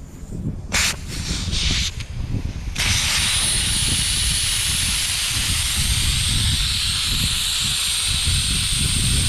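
Air hissing out of the tire through the open valve stem, its valve core removed, as the tire is let down. Two short bursts come first, then a steady hiss from about three seconds in.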